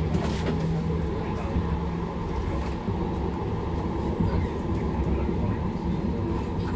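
Inside a Manchester Metrolink tram (Bombardier M5000) running between stops: a steady low rumble of the moving tram.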